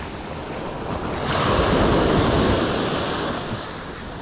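Small surf waves breaking at the shoreline and washing up the sand. A wave breaks about a second in, swells louder, then fades as the wash runs out.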